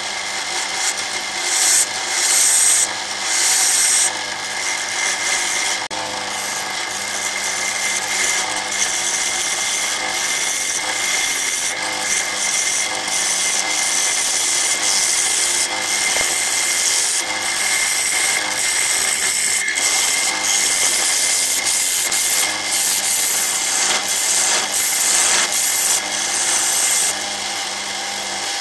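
Bowl gouge cutting into a large jacaranda bowl spinning on a wood lathe: a rough, steady hiss of shavings being peeled off. It comes in short passes at first, then runs as one continuous cut. The lathe's electric motor hums faintly underneath.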